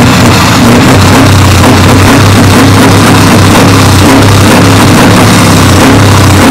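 Scania V8 diesel engine idling through a chrome side exhaust pipe, a very loud, steady low burble right at the outlet.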